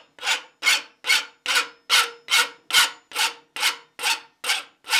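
Hand file rasping over the ends of steel straps clamped in a bench vise, in even back-and-forth strokes about two and a half a second, filing the pinned strap ends even.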